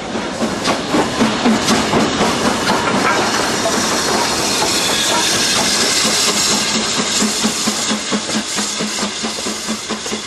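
BR Standard Class 9F 2-10-0 steam locomotive working slowly. Regular exhaust beats sound over loud hissing steam, and the hiss swells through the middle.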